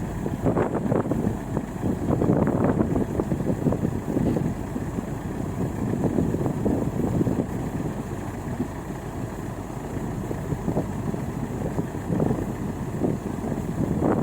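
Combine harvester engine running steadily while it unloads rice paddy, a dense, uneven mechanical noise.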